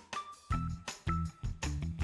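Background music with a steady beat and short high tinkling notes.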